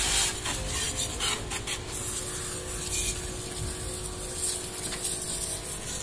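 Water jetting steadily from the spray-gun nozzle of a small electric bike-and-car washer pump onto a scooter's rear wheel and bodywork: a continuous hiss and splash, with a faint steady hum underneath.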